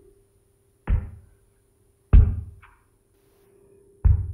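Three deep, heavy thuds one to two seconds apart, each dying away quickly, the second the loudest, with a short lighter knock just after it and a faint steady hum underneath.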